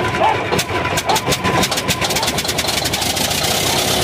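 Caterpillar D7 bulldozer's diesel engine running just after a cold start following five years of sitting. It fires unevenly at first, then settles into a steadier idle about three seconds in.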